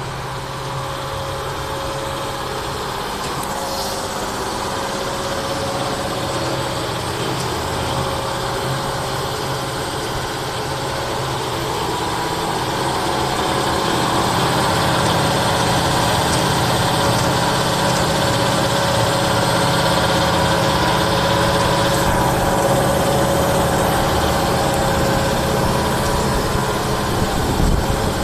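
Trailer-mounted double-vacuum-chamber transformer oil purifier running, its electric motors and pumps giving a steady mechanical hum with a held tone. The machine is working through vacuum dehydration, degassing and oil circulation. It grows louder over the first half.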